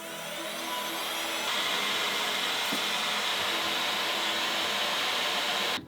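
A fan-driven electric tool's motor spinning up over the first second or so, then running steadily with a loud rush of air. It cuts off abruptly near the end.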